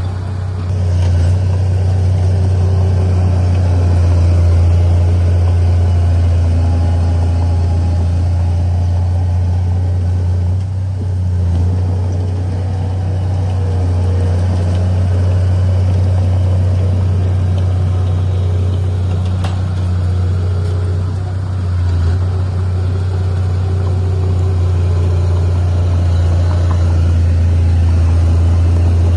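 Heavy diesel engine of earthmoving machinery running steadily, a low constant drone with only slight changes in level.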